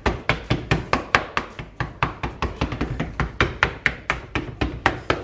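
Slotted spatula patting gingerbread dough flat on a baking tray, used in place of a rolling pin: a quick run of taps, about four or five a second.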